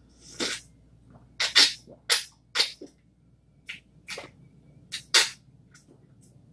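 A person gulping water from a tumbler close to the microphone: about nine loud swallows in an irregular run over several seconds.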